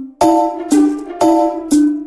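Background music for a cat meme: short pitched notes, each with a hissy attack, repeating evenly about two a second.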